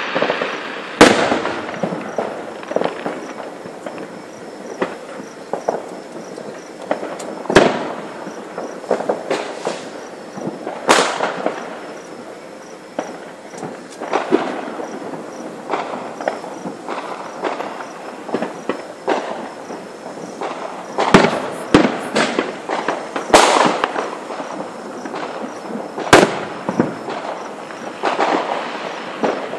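Aerial fireworks display: sharp bangs every few seconds, each followed by a smear of echo, with crackling and popping between them. The loudest bursts come about a second in, near eight and eleven seconds, and twice more in the last third.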